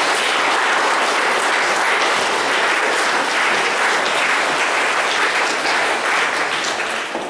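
Audience applauding with steady, dense clapping that begins to thin out near the end.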